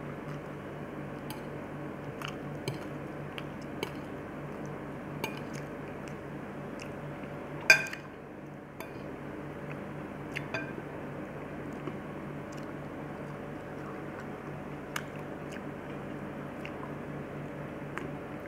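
Eating sounds: a metal fork clicking against a plate every second or so, with one much louder clink about eight seconds in, and soft chewing over a steady low hum.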